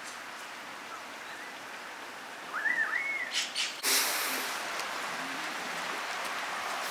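Steady hiss of rain with a bird calling two short arched notes about two and a half seconds in. After a few clicks, the rain hiss gets louder and brighter at about four seconds.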